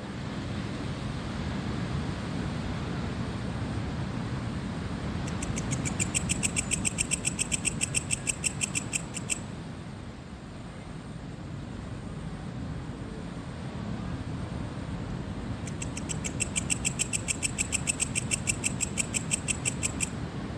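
Cricket chirping in two bouts of rapid, evenly spaced high pulses, about six a second and each bout some four seconds long, over a steady low rush of ocean surf.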